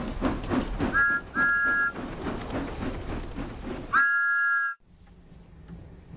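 Steam locomotive chuffing in a quick, even rhythm, with two short two-tone whistle toots about a second in and a longer whistle blast at about four seconds that cuts off abruptly. After that only faint room sound with light rustles remains.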